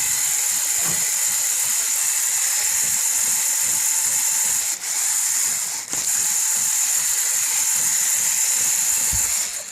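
Lego Technic electric motors and plastic gearing of a remote-controlled model van whirring steadily with a high whine, dipping briefly twice.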